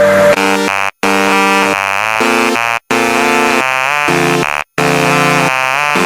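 Electronic music with a harsh, buzzing synthesizer playing stepped chords, cutting to silence for an instant about every two seconds.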